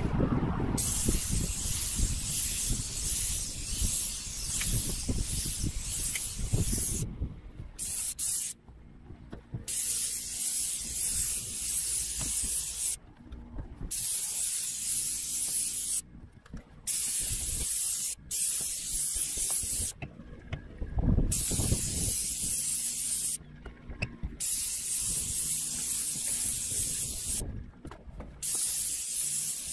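Airless paint sprayer spraying steel primer undercoat from its gun tip onto a corrugated steel roof: a loud high hiss in passes of a few seconds each, cutting off sharply and starting again several times as the trigger is released and squeezed. A low rumble lies under the first several seconds.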